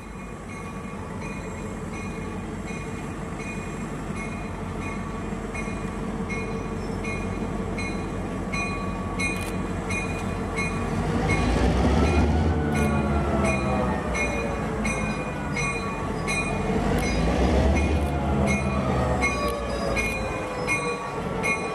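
Diesel locomotive hauling a passenger train at low speed. Its engine drones steadily at first, then gets louder from about halfway through, its pitch rising and falling as it works, with regular ticks from the wheels and rails.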